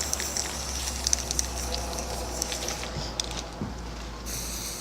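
Aerosol can of spray-on hair dye hissing as it sprays onto hair, with scattered clicks; the spray stops about three seconds in and starts again near the end.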